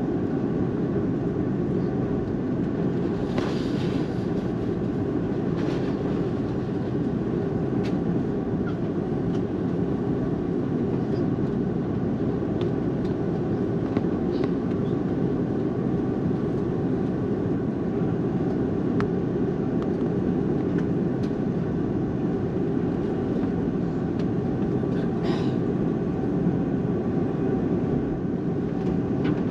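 Airbus A330-300 engines running at taxi idle, heard inside the cabin as a steady low rumble and hum while the airliner taxis, with a few faint clicks and rattles.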